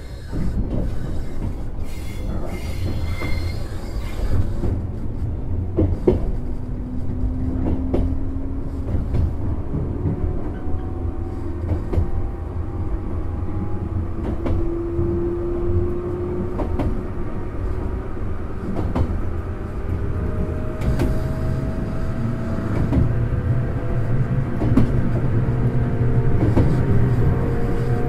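A JR West 105 series electric train running, heard from inside the passenger car: steady wheel and floor rumble with occasional clicks from rail joints. The whine of its high-pitched MT55A traction motors slowly rises in pitch as the train picks up speed.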